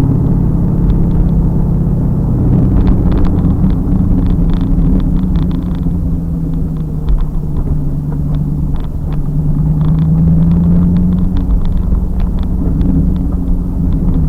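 2000 Pontiac Trans Am Firehawk's 5.7-litre LS1 V8 running under way on track, heard from inside the car as a steady low drone whose pitch eases and climbs again a little past halfway. Scattered light clicks and rattles sound over it.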